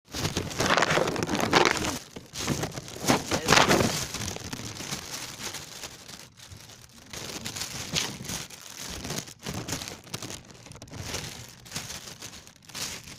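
Plastic bag crinkling and rustling as it is handled, loudest over the first few seconds and fainter after.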